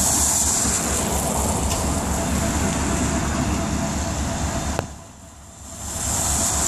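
Norfolk Southern EMD diesel locomotive running past slowly at the head of a freight train: a steady low engine throb under a hiss. About five seconds in there is a click, the sound drops away for about a second, and then it returns.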